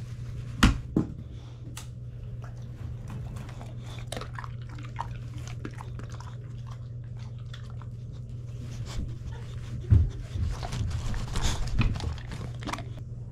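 Boxer dog sniffing at and chewing pretzels, with many small crunches and clicks and a few louder knocks about half a second in and again near the end. A steady low hum runs underneath.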